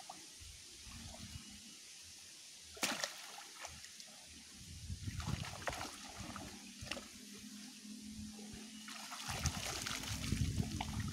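Shallow muddy water splashing and sloshing as a hand net is worked through it, with a single sharp click about three seconds in. Near the end it grows louder as the net is lifted and water trickles and pours out through the mesh.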